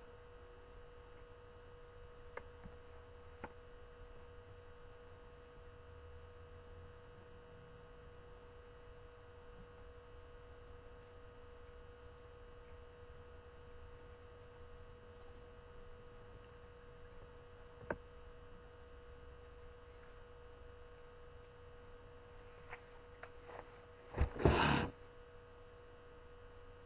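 Steady electrical hum with a clear pitched tone, broken by a few faint clicks and one brief louder rustling noise near the end.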